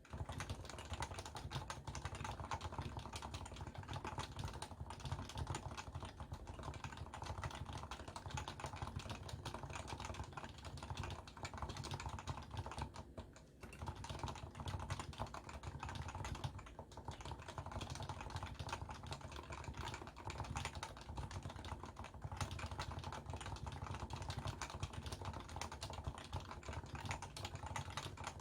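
Continuous fast typing on a Leopold FC660C keyboard with stock, non-silenced 45 g Topre electrostatic-capacitive switches, picked up by a phone's microphone, with a brief pause about halfway through.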